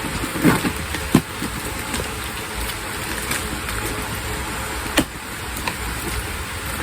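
A well-sealed shoe package being opened by hand: scattered sharp snaps and crackles of packaging, the loudest about a second in and again about five seconds in, over a steady low background rumble and hiss.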